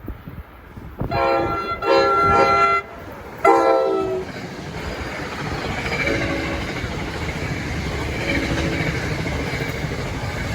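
A passing train's air horn sounds a long blast and then a shorter one, followed by the steady rumble and clatter of the train running by on the rails.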